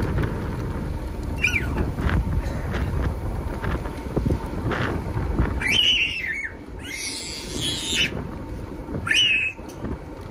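Gulls giving several short, harsh cries, heard over steady wind buffeting the microphone.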